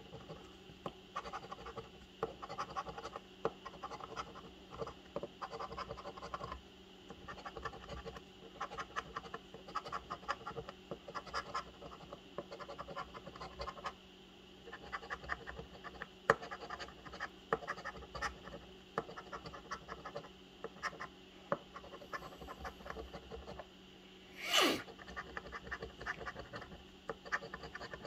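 A large coin scratching the coating off a paper scratch-off lottery ticket in quick back-and-forth strokes, with short pauses now and then. About three-quarters of the way through, a brief sound falls sharply in pitch.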